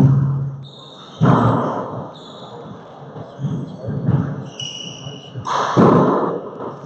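Handball court sounds: a sharp smack of the ball at the start, with a short low ring from the enclosed court, then sneaker squeaks on the hardwood floor and two more loud dull hits, about a second in and near the end.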